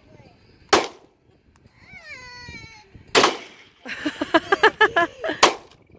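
Three rifle shots, each a sharp crack with a short echoing tail, about two and a half seconds apart.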